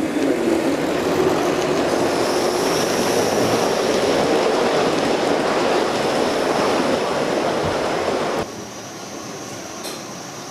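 Gauge 1 model Pendolino train running past close by: the steady rush of its wheels on the rails. The sound cuts off abruptly about eight seconds in, leaving a much quieter background.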